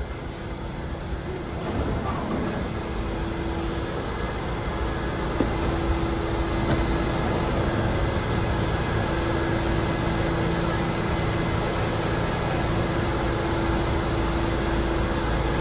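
New York City subway train coming into the station and stopping, then standing at the platform with its doors open, with a steady hum from the car's equipment throughout.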